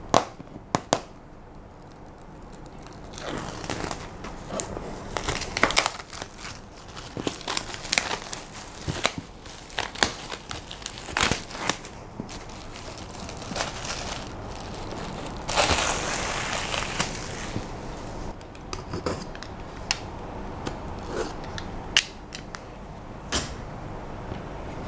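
Clear plastic wrapping crinkling and rustling as it is pulled off a box, with sharp clicks and knocks from the box being handled.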